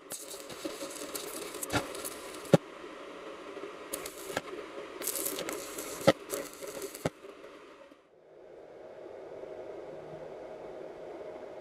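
Stick (arc) welding with a coated electrode on steel: the arc crackles and sizzles, broken by sharp pops, for about seven seconds and then stops. A steady low hum follows.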